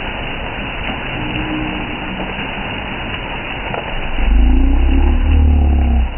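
Heavy rain falling steadily on a paved street, a constant hiss. About four seconds in, a louder low rumble with a steady hum joins it.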